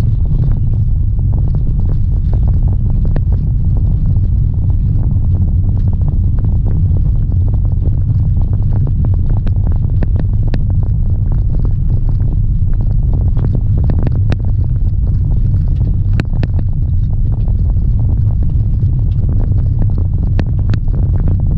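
A car driving on a gravel road, heard from inside the cabin: a steady, loud low rumble of tyres and running gear, with many small sharp clicks and ticks of loose stones.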